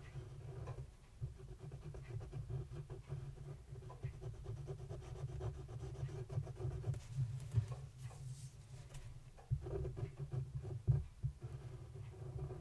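Black fine-tip liner pen scratching on paper in quick short strokes, close to the microphone, over a low steady rumble.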